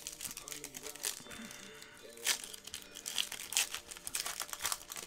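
Foil wrapper of a Panini Select basketball card pack crinkling and tearing as it is ripped open by hand: a string of quick, irregular crackles.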